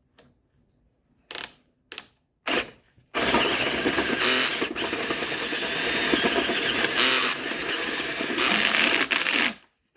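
Power drill boring into the lock of a 1963 payphone's coin box: three short bursts on the trigger, then a continuous run of about six seconds that stops abruptly.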